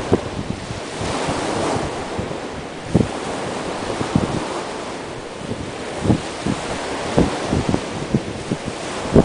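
Sea waves breaking and washing up the beach under strong wind, with the wind buffeting the microphone in a few sharp low thumps.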